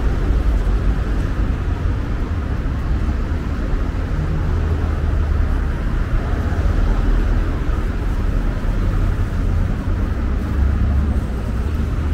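Steady, loud low rumble of vehicle noise with a broad hiss over it, with no clear breaks or sharp events.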